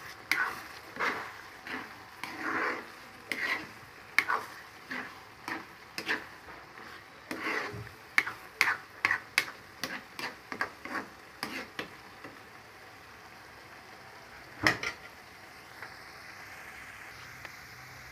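A spatula scraping and stirring a thick coconut-milk stew in a pan, about one to two strokes a second, over a low sizzle. The stirring stops about twelve seconds in, with one more scrape a few seconds later, then only the sizzle. The coconut milk is being cooked down until its oil separates.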